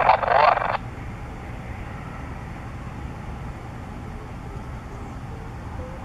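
A brief burst of radio static at the start, then the low, steady rumble of a twin-turbine AS 365 N3 Dauphin helicopter flying away. Faint short chirps come in near the end.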